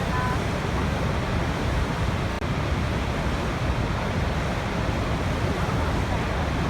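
Waterfall: a steady, even rush of falling water, deepest at the low end.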